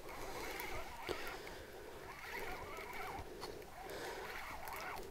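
Faint, soft whirring of a spinning reel on an ice-fishing rod winding in line as a hooked lake trout is brought up, in short spells.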